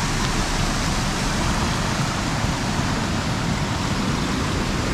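Water rushing steadily over a concrete river weir and churning through the fish-ladder channels, a constant even rush.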